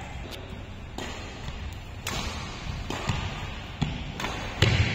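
Badminton rally: sharp racket strikes on the shuttlecock about once a second, mixed with heavy thuds of players' feet landing and lunging on the court mat. The loudest thud comes near the end.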